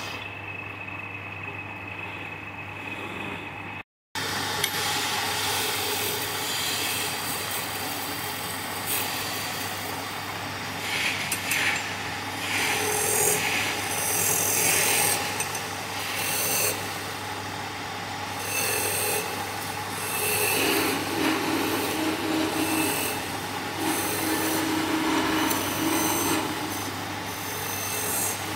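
Wood lathe running with a steady motor hum while a turning tool scrapes against the spinning wood, a rough rasping that comes and goes in uneven passes and grows busier after about ten seconds. The sound cuts out for an instant about four seconds in.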